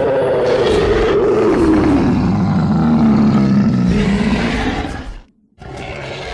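Dragon roar sound effect: one long pitched roar that falls in pitch and fades out about five seconds in, followed after a short break by a brief, quieter growl.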